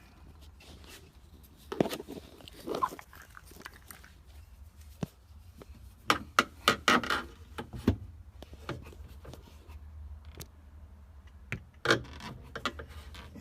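Screwdriver prying at a plastic tab on a refrigerator freezer bin: scattered clicks, scrapes and rubbing of plastic, in short clusters over a low steady hum.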